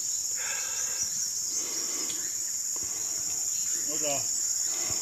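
Steady, shrill insect chorus: a continuous high-pitched trilling from many insects in the undergrowth, with no break or change in level.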